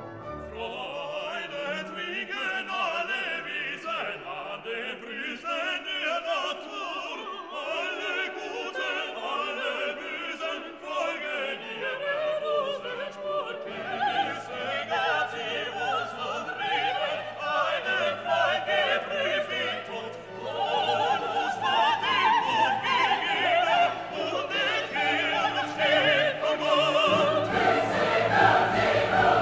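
Background classical music: operatic singing and choir with orchestra, growing fuller and louder in the second half.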